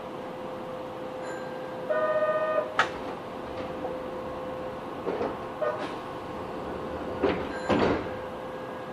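Station platform sound beside a stationary Kobe Municipal Subway 1000 series train standing with its doors open: a steady hum, a short buzzing tone about two seconds in ending with a click, and a few scattered knocks and clacks later on.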